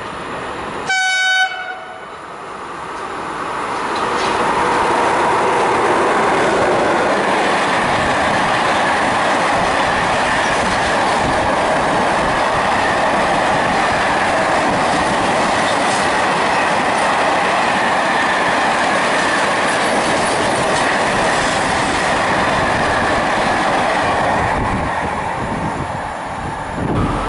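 FS E652 electric locomotive gives a short horn blast about a second in. Then a long freight train rolls past with steady wheel-on-rail noise, which eases off near the end as the last wagons clear.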